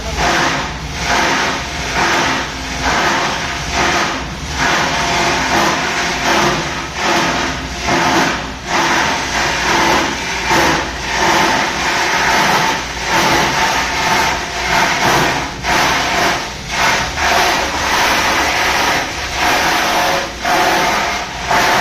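A plastic rope and rassi waste grinder machine running, a loud, noisy mechanical drone that swells and dips about every second or so.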